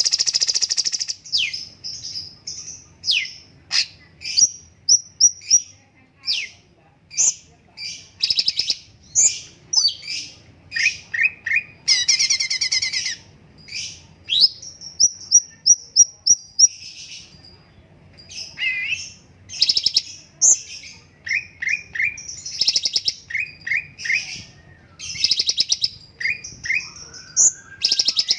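Cucak cungkok songbird singing continuously: a rapid string of sharp chirps, quick trills and short whistled notes with only brief pauses.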